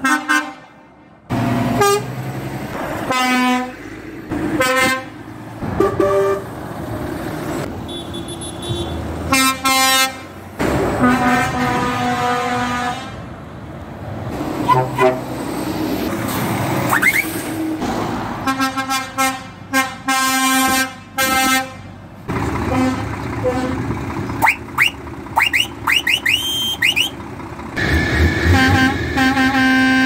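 Lorry air horns sounding one after another: a run of short toots and longer blasts of differing pitch, over truck engine noise. Several blasts slide up in pitch, and near the end a chord-like horn is held for about two seconds.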